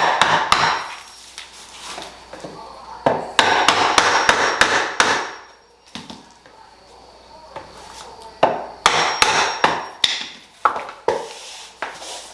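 Three bursts of quick, sharp knocks with quieter gaps between: cork click-lock floor planks being tapped together so their joints lock in place.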